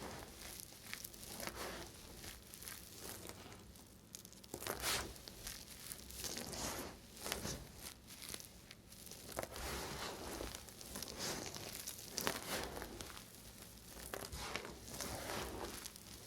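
Knife cutting through dry bar soap, a run of irregular crisp crunching and scraping strokes.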